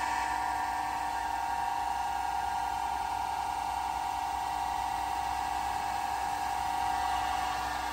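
Enshu F2 horizontal milling machine running with its spindle at top speed, 1760 rpm: a steady whine that holds constant. There is no extra noise from the spindle, a sign that it runs in good condition.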